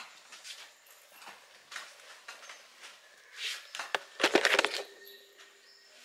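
Soft rustling and handling noises close to the microphone, with a louder cluster of rustles and sharp clicks about four seconds in.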